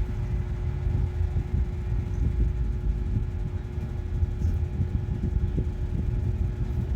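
Steady low rumble with a constant hum above it.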